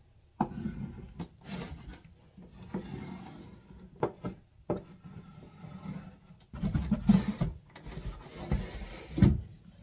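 An orange wax melt rubbed along a wooden drawer track, a dry scraping with a few sharp clicks; the wax is meant to make the sticking drawer run more smoothly. Louder wooden knocks and scrapes in the last few seconds as the drawer itself is handled.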